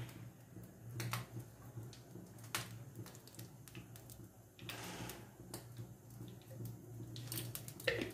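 Cooking oil poured in a thin stream into a nonstick frying pan, a faint trickle with a few light clicks.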